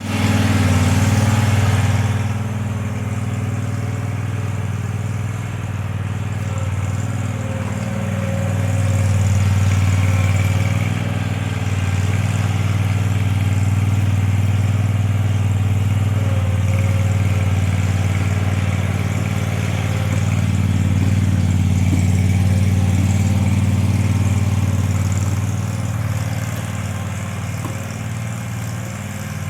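Compact stand-on lawn mower's engine running with a steady low hum, swelling and easing a little in loudness.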